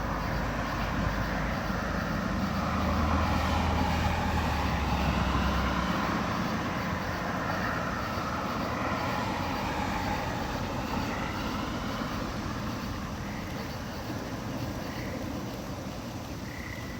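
Outdoor tornado warning sirens wailing in the distance, their pitch slowly rising and falling. A low rumble joins in from about two to six seconds in.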